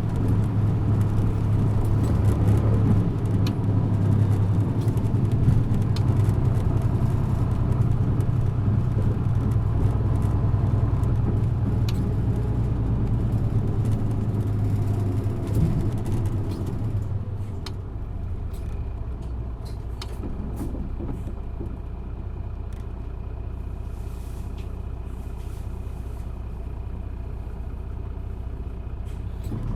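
Isuzu Erga city bus's diesel engine heard from inside the bus, pulling steadily under load. About halfway through it eases off and runs quieter and lower, with a faint high whine.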